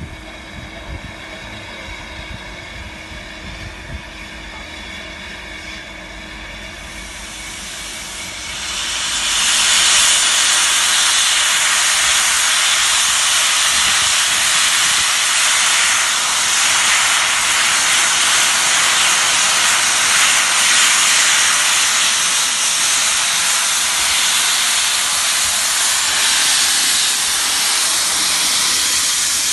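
Steam locomotive LMS Jubilee 45596 standing with its cylinder drain cocks open, steam jetting out in a loud steady hiss that starts about nine seconds in. Before that there is a softer steady hiss and hum from the engine.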